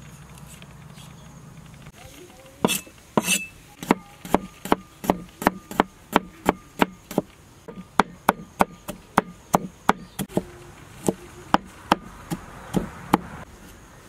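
Steel cleaver chopping turmeric root on a wooden chopping board: sharp knocks of the blade striking the board, about three a second, starting a few seconds in, with a brief pause before a last few strokes near the end.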